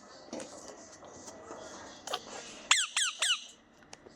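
Lovebird calling with short, high squeaky chirps, ending in three quick calls close together that each sweep sharply down in pitch.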